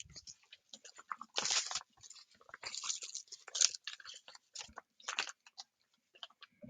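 Crinkly plastic packaging bags crinkling and rustling as they are handled, in irregular bursts.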